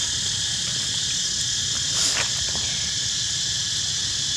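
Steady high-pitched drone of insects, with one brief, sharp sound about two seconds in.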